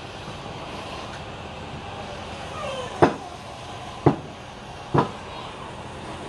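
Three sharp knocks about a second apart, the first the loudest, as a wooden turning blank is taken off a lathe's metal four-jaw chuck and handled.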